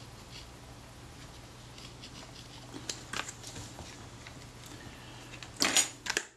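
Small handling noises at a workbench over a steady low hum: a few faint ticks, then a short loud rustling clatter near the end.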